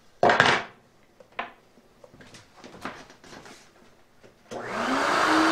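A few knocks and taps of wood being handled and set in place, the loudest just after the start. About four and a half seconds in, an electric router switches on, its whine rising quickly to a steady pitch.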